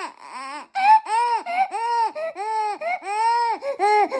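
A baby vocalising in a quick run of short, pitched cries or squeals, each rising and falling in pitch, about two a second.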